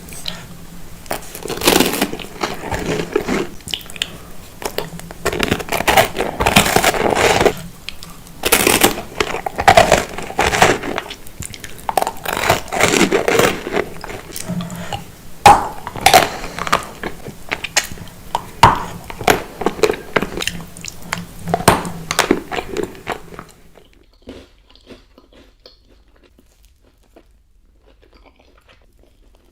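Close-miked mukbang eating of profiteroles: loud biting, crunching and wet chewing, in irregular bursts. A little past three-quarters of the way through it drops suddenly to faint, sparse mouth sounds.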